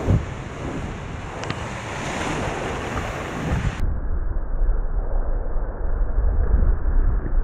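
Wind and rushing water around a Volvo Ocean 65 racing yacht sailing fast through waves, with wind buffeting the microphone. About four seconds in the sound turns duller and deeper, dominated by a heavy low wind rumble.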